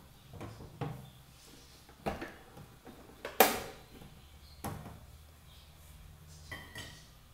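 A few scattered knocks and clunks from handling a stand mixer as its tilt head is lowered onto the bowl. The loudest is a sharp clack about three and a half seconds in.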